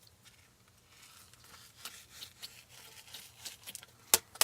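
Hand-kneaded slime loaded with pearl beads and glitter being squished and stretched, making faint irregular crackles and clicks, with one sharp louder click near the end.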